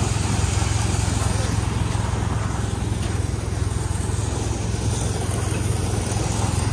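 Tractor diesel engine running steadily, with the rush of paddy grain sliding out of a tipped hydraulic trailer onto a heap.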